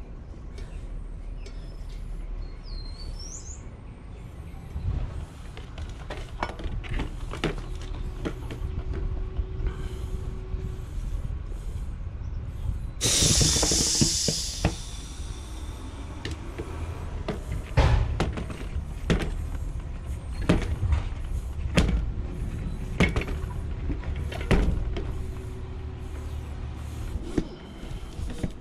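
Maxxis tubeless mountain-bike tire being worked on its rim, with scattered knocks and clicks. About halfway through comes a rush of hissing air lasting about two seconds.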